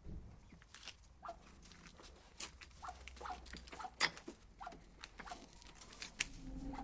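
Kittens mewing: short, faint mews, each falling in pitch, about eight times, mixed with sharp clicks and taps.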